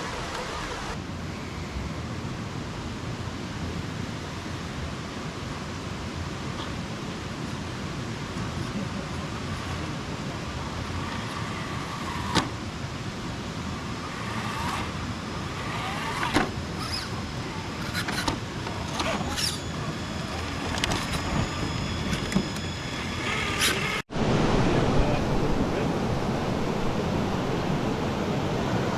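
Radio-controlled rock crawler's small electric motor and gears whining in short bursts, with clicks, over a steady rush of background noise. The sound cuts off sharply about 24 s in and resumes with a louder background.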